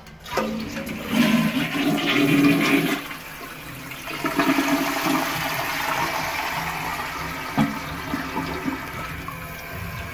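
Toilet flushing: a rush of water starting about a third of a second in, loudest for the first three seconds, then a steadier run of water that slowly fades as the cistern refills through its fill valve.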